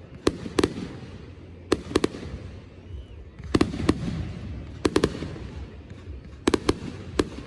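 Fireworks going off: sharp bangs in quick clusters of two or three, a new cluster about every second or so.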